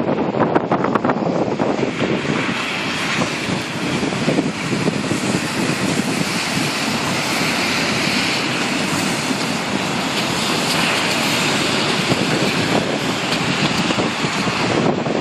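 Hurricane-force wind rushing down the street and buffeting the microphone, choppy at first, then settling into a sustained hissing gust about two seconds in.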